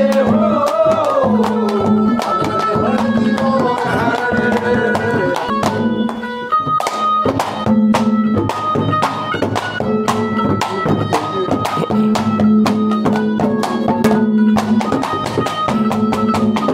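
Instrumental interlude of Haryanvi ragni folk music: a hand drum keeps a fast, steady beat under a recurring held low drone and a melody line on top. The last sung note of the refrain trails off in the first second.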